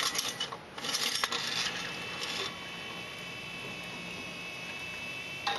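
Balls clattering and knocking as they drop into a self-rolling ball return system, then a steady high ringing while they roll through it, which cuts off suddenly with a knock near the end.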